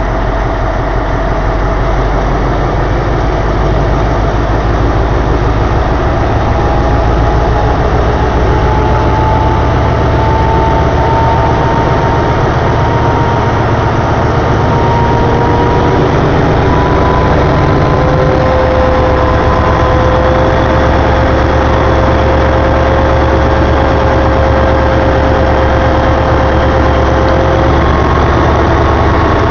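Alsthom ALS-class diesel locomotive's MTU engine idling steadily, with a faint whine that climbs slowly in pitch over the middle of the stretch.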